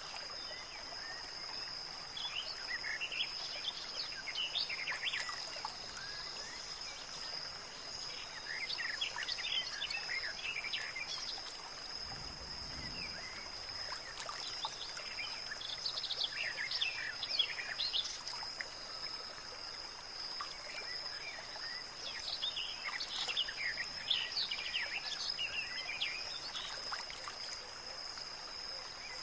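Outdoor nature ambience: small birds chirping in clusters of short calls every few seconds, over a steady high whine and a soft hiss.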